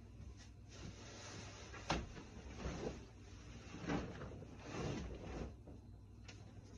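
Bed linen rustling as a white duvet and sheets are lifted and gathered up, in a few noisy swishes, with a sharp knock about two seconds in.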